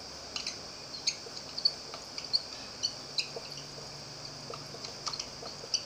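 Marker pen writing on a whiteboard: short, irregular high squeaks and light ticks as the strokes are drawn.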